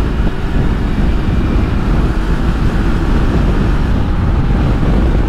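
Kawasaki Versys-X 300 parallel-twin motorcycle running steadily at road speed. Its engine drone is mixed with a heavy low rumble of wind and road noise.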